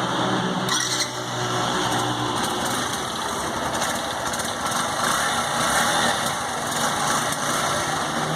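Suzuki GD110S motorcycle's single-cylinder four-stroke engine running at a steady idle.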